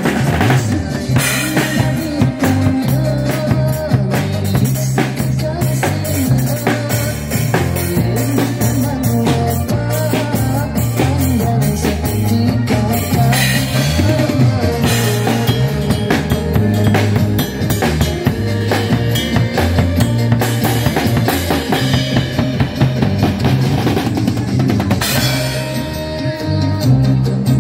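Live band playing, led by a drum kit: kick, snare and cymbals keep a busy, steady beat over a low stepping bass line, with no singing.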